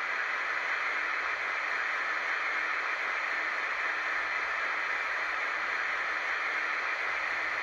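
Sound-fitted N gauge Dapol Class 56 model locomotive standing with its DCC sound decoder running, giving a steady, unpitched engine sound through its two small speakers, thin in the bass, with no change in speed or notch.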